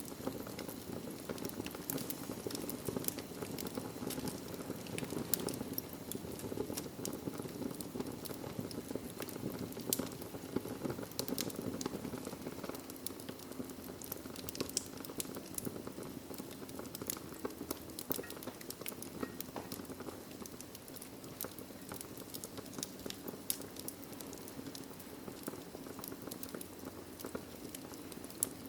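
Wood fire burning in a fireplace: a steady low rush of flames with frequent sharp, irregular crackles and pops.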